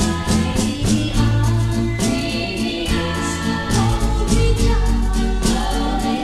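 An early-1960s pop record playing: singing over a backing band with a steady beat.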